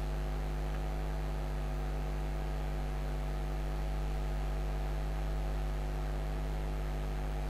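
Steady low electrical mains hum with its buzzing overtones, picked up by the recording setup, over a faint hiss.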